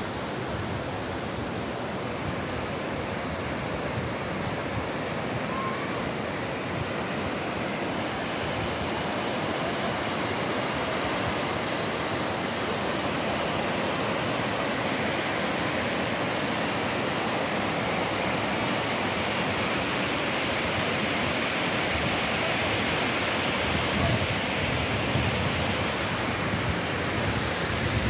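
Water rushing steadily down a sloped concrete weir spillway, an even, unbroken rush that grows gradually a little louder.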